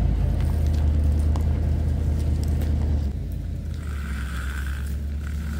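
1990 Suburban's engine idling steadily, heard from close behind the truck. The engine becomes a little quieter about three seconds in, and a thin steady high tone comes in about four seconds in.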